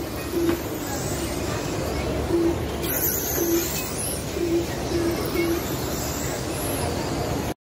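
RC race cars running laps on a clay dirt oval: a steady hiss of motors and tyres, with short beeps of one pitch recurring every second or so.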